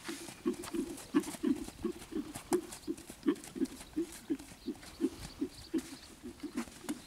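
A horse trotting on a sand arena: its hooves thud in an even rhythm, about three beats a second.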